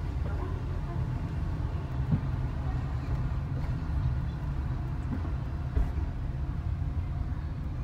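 Car cabin noise while driving: a steady low road-and-engine rumble heard from inside the car. Two brief dull thumps stand out, about two seconds in and again just before six seconds.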